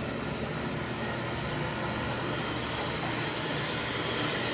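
Beckett oil burner firing on an old oil boiler, running with a steady, even noise of burner fan and flame. Its bad fuel pump has just been replaced, and the earlier pump whine is gone.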